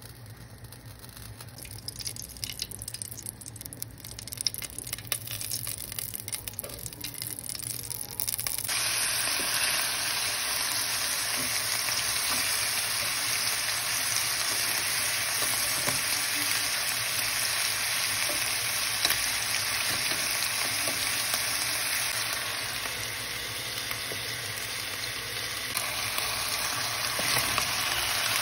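Ghee in a pot crackles faintly, then about a third of the way through a loud, steady sizzle starts suddenly as pieces of bone-in meat fry in the hot ghee, and it carries on while they are turned.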